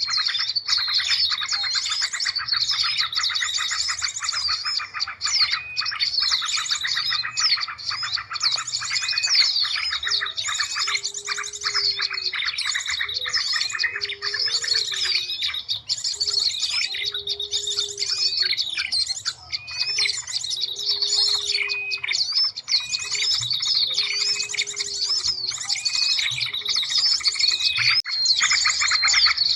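Bird-luring recording of many small birds calling at once: a dense, continuous chorus of high chirps, twitters and trills. Through the middle a short low note repeats about every two seconds.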